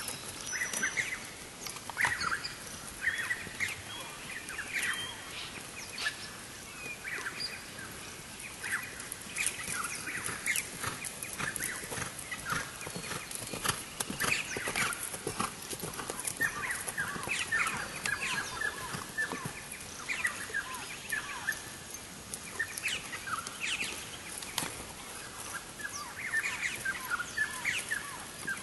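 Birds calling throughout, many short falling calls overlapping one another, over the soft, scattered hoofbeats of a horse moving on grass.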